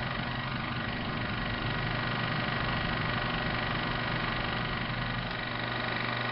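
A steady mechanical hum with hiss, holding several constant tones.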